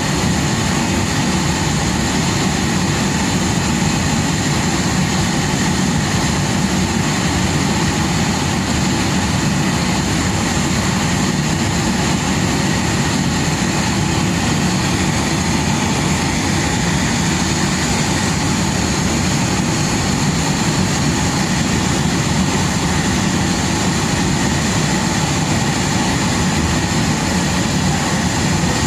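Steady, unbroken drone of engines running on an airport apron beside a wide-body airliner, with a thin high whine held over it.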